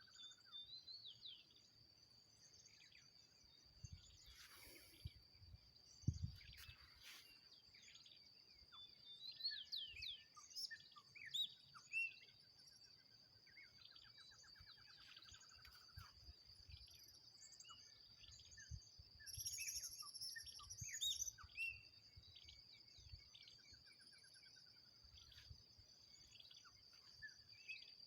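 Many birds chirping and trilling, faint, over a steady high-pitched whine, with scattered low thumps on the microphone.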